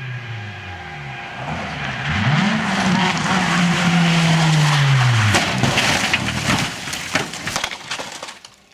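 Rally car engine revving up hard about two seconds in, then dropping away, over loud noise of the tyres skidding on a loose surface. A run of sharp knocks and thuds follows about five to seven seconds in as the car crashes, and then the sound fades out near the end.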